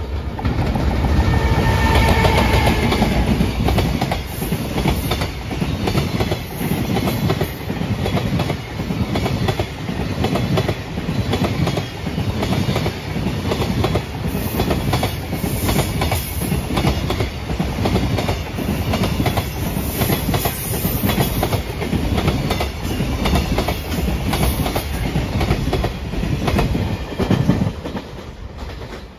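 A JR Freight EF210 electric locomotive passes close by, followed by a long string of container flat wagons, their wheels clattering rhythmically over the rail joints. The sound falls away near the end as the last wagon moves off.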